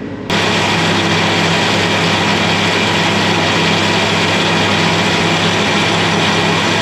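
Steam cleaner (hot-water pressure washer) spraying, a loud steady hiss over the hum of its running pump and engine, switching on abruptly just after the start.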